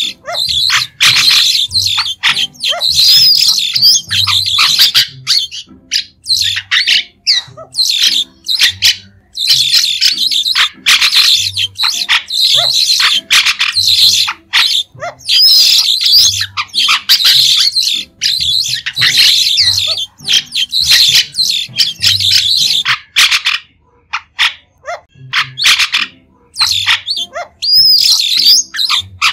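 White-shouldered starling (Sturnia sinensis) calling in runs of short, shrill chattering notes broken by brief pauses, with an occasional rising-and-falling whistled note.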